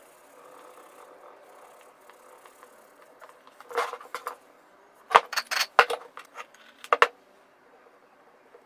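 Small metal hardware being handled on a wooden board, clicking and clinking: a short cluster about four seconds in, a quick run of several clicks just after five seconds, and a single click about seven seconds in. Before the clicks there is only faint rubbing.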